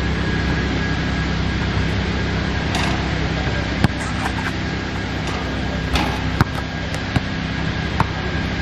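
A basketball thumping on an outdoor court surface several times at uneven intervals, over a steady background rumble.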